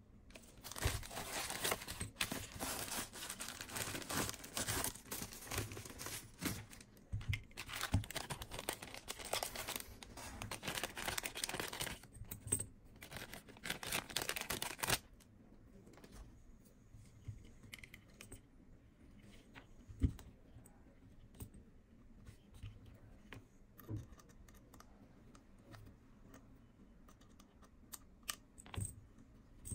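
Clear plastic packaging being opened and handled, a dense crinkling and tearing that stops abruptly about halfway through. After it, only scattered light clicks and taps of small plastic and metal parts being handled, with one sharper knock.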